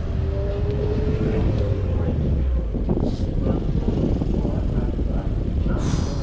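Car engines running with a heavy low rumble. A steady drone holds for the first couple of seconds, then eases about two and a half seconds in.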